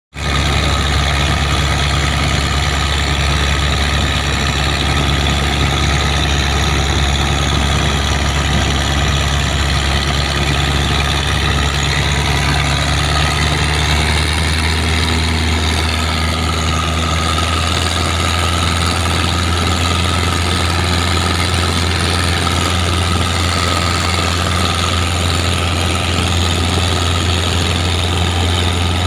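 Mitsubishi 4D31 four-cylinder diesel engine running steadily in a boat, a low even drone whose note shifts slightly about halfway through.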